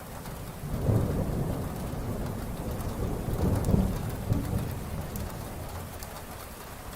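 Heavy rain with a low rolling thunder rumble that swells about a second in, builds again around the middle, then dies away near the end.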